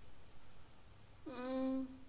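A person's voice humming one short, steady-pitched 'mmm' just past halfway, heard over a video-call line; otherwise faint room tone.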